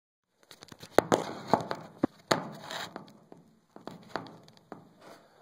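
Irregular clicks, knocks and rustling, most of them in the first three seconds, from the phone being handled and moved about; no engine is running.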